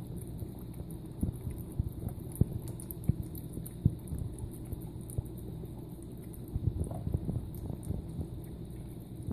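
Tabby kitten eating wet cat food from a bowl: irregular chewing and smacking sounds, a few sharp ones in the first four seconds and a quick run of them about seven seconds in, over a steady low hum.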